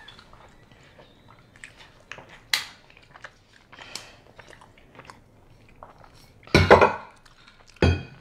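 Close-miked chewing and lip-smacking of soft donuts, with scattered small clicks. A louder handling noise comes about six and a half seconds in and a shorter one near the end, as hands reach to the donut tray.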